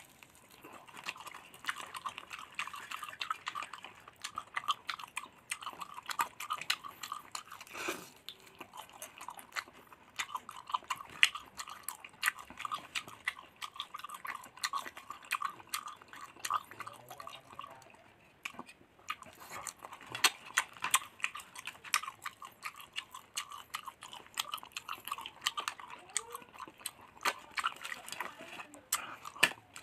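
Close-up chewing and biting of fried duck coated in soy sauce and chili: a dense run of crisp crunches and mouth clicks, with a short lull a little past the middle.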